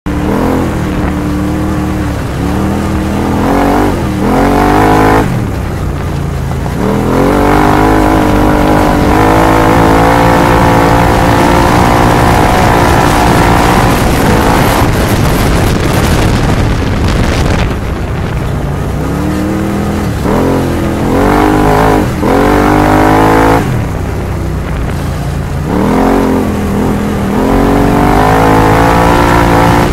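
Arctic Cat Wildcat X side-by-side's 951 cc V-twin engine running hard under racing load, heard up close from on board. The revs climb and fall back over and over, with several sharp drops as the throttle is lifted or a shift is made.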